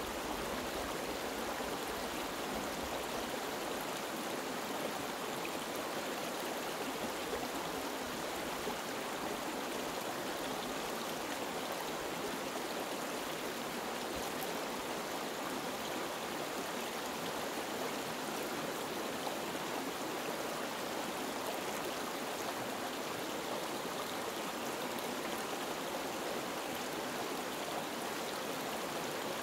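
Small rocky stream running over stones and riffles: a steady rush of water.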